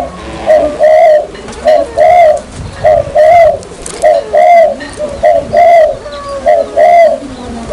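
Barbary dove (puter) cooing as a lure call: a short note followed by a longer one, repeated about once a second without a break.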